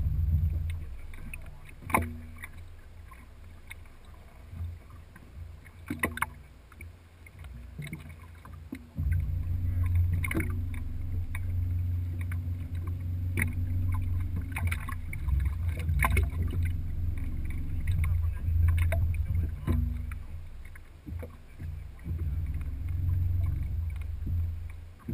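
Low rumble of a small fishing boat on rough water, louder from about nine seconds in, with about six sharp knocks or clicks spread through.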